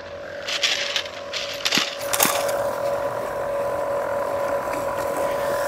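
EcoFlow Blade robotic lawn mower running with a steady electric motor whine. In the first two seconds there are several sharp clattering knocks, then a continuous rushing noise under the whine.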